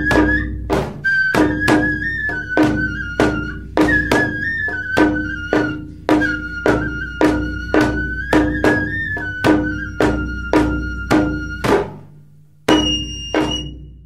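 Rakugo debayashi entrance music: a shamisen plucked in a quick, steady rhythm, about three strokes a second, under a wavering bamboo flute melody and a low drum. The music breaks off about twelve seconds in, and one last short phrase follows.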